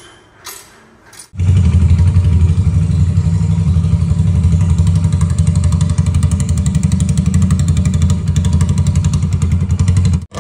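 Hero Splendor single-cylinder motorcycle engine running steadily at idle through a Royal Enfield Bullet silencer, a loud, even exhaust beat with no revving. It starts abruptly about a second and a half in, after a few faint tool clinks, and stops just before the end.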